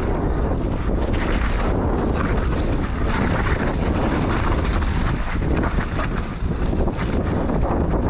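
Wind buffeting the microphone of a helmet-mounted GoPro Hero 9 during a mountain bike descent, a steady low rumble. Over it, the tyres roll on a muddy dirt trail and the bike's frame and drivetrain rattle with many small knocks.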